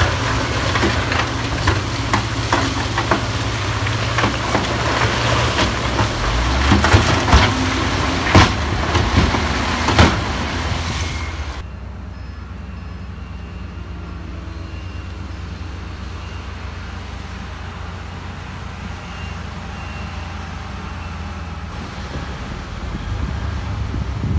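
Heavy diesel earthmoving machinery working, with loud grinding and several sharp clanks of rock and steel in the first half. About halfway through it drops off abruptly to a quieter, steady diesel engine drone.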